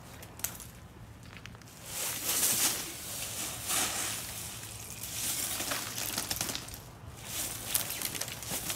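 A thin sheet of ice on a trampoline mat crunching and cracking under a crawling child, with small shards clinking. The crunching comes in several bursts, the loudest about two seconds in.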